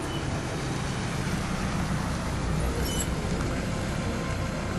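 A car running, heard as a steady, even noise strongest at the low end.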